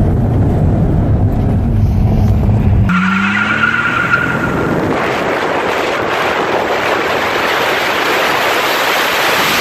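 A car on the move: a heavy, steady rumble that about three seconds in gives way to a loud rushing noise. The noise cuts off abruptly at the end.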